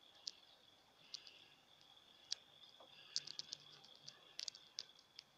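Near silence: a hand-blender DC permanent-magnet motor turns a stirrer shaft slowly at 10 volts, heard only as a faint steady high whine with sparse, irregular light clicks.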